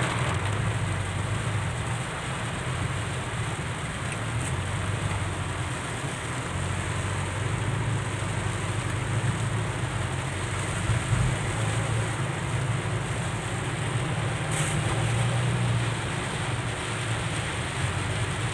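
Inside a moving car in heavy rain: a steady hiss of rain on the roof and windscreen and tyres on the wet road, over a low steady engine and road drone.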